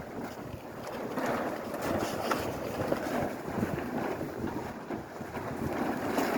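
Plastic tarps flapping and rustling in strong blizzard wind, with irregular sharp snaps, and wind buffeting the microphone.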